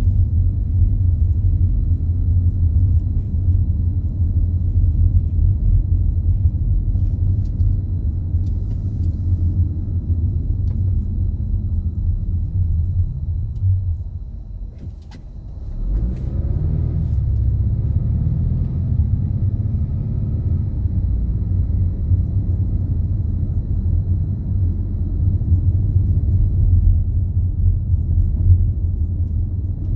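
Low, steady rumble of a car driving. It fades briefly about halfway through, then comes back with an engine note that rises in pitch as the car picks up speed.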